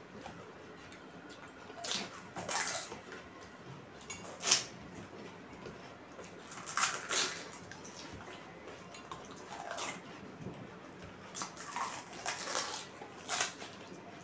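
Pani puri being dipped by hand into a steel bowl of spiced water and eaten fast: short splashes and clinks against the steel bowl, with mouthful eating noises, in about ten quick separate sounds. The loudest comes about four and a half seconds in.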